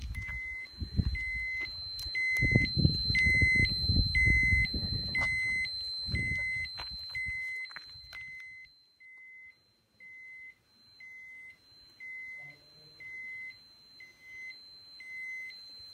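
Radiation dosimeter sounding its alarm: short, high electronic beeps, evenly spaced at about two a second, the steady rate alarm that signals an elevated dose rate. Low rustling and movement noise runs under the beeps for the first half or so, then stops.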